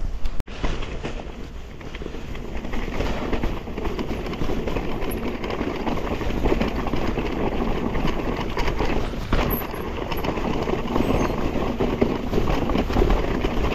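Mountain bike rolling over a rocky trail: a continuous rumble from the tyres with dense rattling and clattering from the bike.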